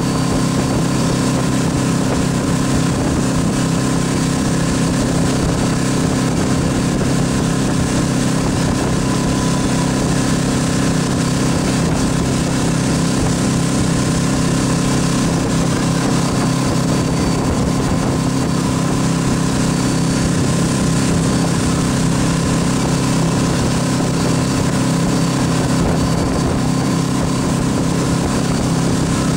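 MasterCraft X2 ski boat's inboard engine running steadily at towing speed, with the hiss of rushing wake water.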